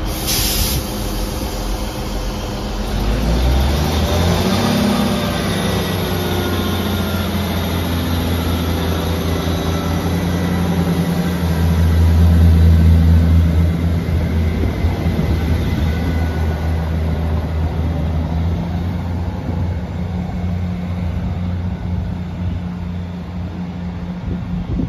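Northern Class 158 diesel multiple unit departing: its diesel engines throttle up about three seconds in with a rising whine as the train pulls away, loudest about twelve seconds in, then settle into a steady low drone as the train draws off down the line.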